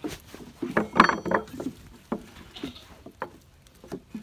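A string of short wooden knocks and taps from the teeter-totter's plank and 2x4 blocks being handled. About a second in comes the loudest cluster, with a brief metallic ring from the steel axle rod.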